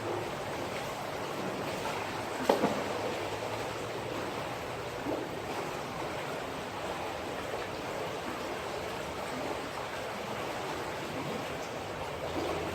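Steady rush of a flowing stream, with one sharp click about two and a half seconds in.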